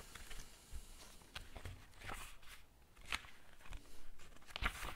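Faint scattered clicks and soft knocks, about half a dozen, spread irregularly over a quiet background.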